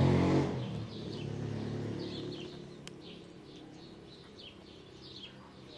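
A passing car's engine fading away over the first second or two, then small birds chirping repeatedly, several short high chirps a second, with a single sharp click about three seconds in.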